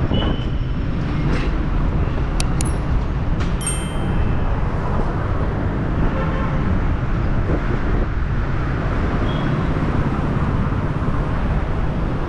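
Steady city street traffic: a continuous low rumble of passing cars. A few short, sharp high-pitched sounds come about two to four seconds in.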